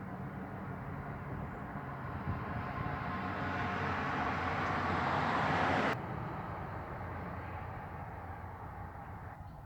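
A 12,000 BTU heat pump's outdoor condenser unit running with a steady low hum. A rushing noise swells over it and cuts off abruptly about six seconds in.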